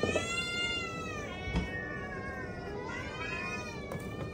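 Domestic cats meowing: about three long, drawn-out meows, each rising then falling in pitch, one after another. They are calling to be fed.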